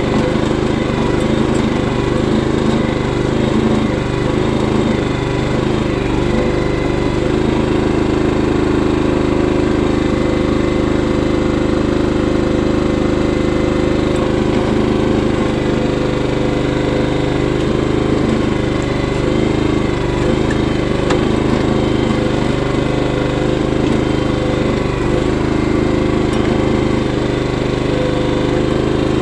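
Small engine of a digging machine running steadily, the machine working a bucket to dig and pack dirt.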